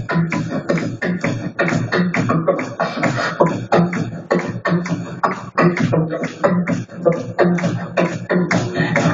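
Solo beatboxing into a handheld microphone, amplified: a continuous fast run of vocal drum hits, kick and snare-like strokes, with a hummed low note sounding under the beat.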